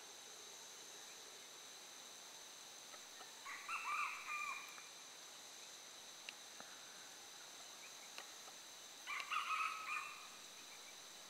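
Red junglefowl rooster crowing twice, short crows about five seconds apart, over a steady high-pitched drone of crickets.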